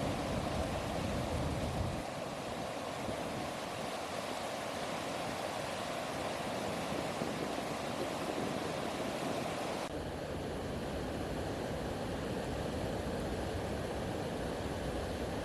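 Steady rush of flowing river water. The tone changes abruptly about two seconds in and again about ten seconds in.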